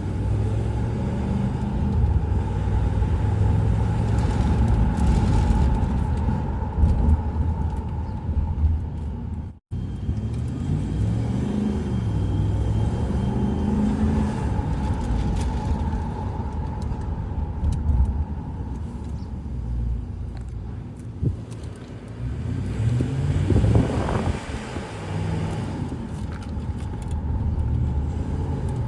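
Ford Expedition being test-driven after a broken pipe was repaired: steady engine and road rumble, with the engine note rising and falling about three quarters of the way through. The sound cuts out for an instant about a third of the way in.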